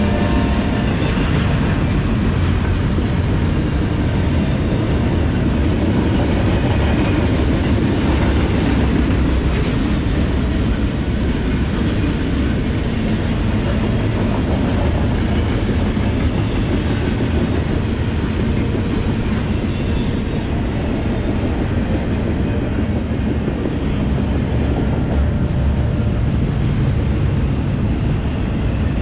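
Double-stack intermodal well cars of a freight container train rolling steadily past close by, their steel wheels running on the rail.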